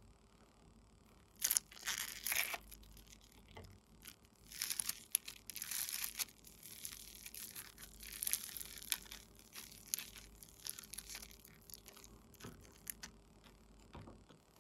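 Hands squeezing and stretching sticky slime mixed with foam beads, giving bursts of crackling and crunching.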